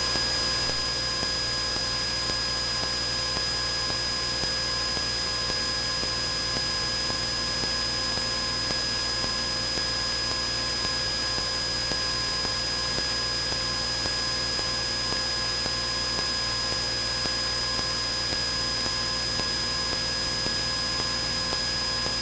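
Steady engine and cabin noise of a Cessna 172N at full takeoff power through the climb-out, heard through the intercom as an even hiss with a few faint steady whining tones, unchanging throughout.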